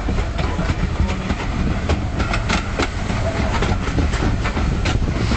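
Ride noise of a steam-hauled passenger train heard from on board: a steady low rumble of the carriage running along the track, with irregular sharp clicks of the wheels on the rails.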